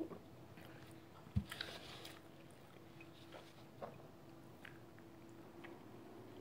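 A person chewing and biting a slice of bread, faint and close, with small clicks and crackles. A single low thump about a second and a half in, followed by a short crackle.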